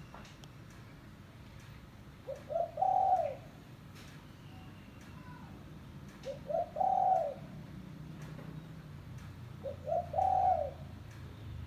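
Spotted dove cooing: three calls about three and a half seconds apart, each a couple of short notes run into one longer coo.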